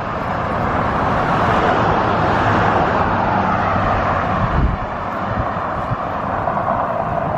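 Road traffic noise: a steady rush of passing vehicles that swells over the first couple of seconds and eases a little around the middle.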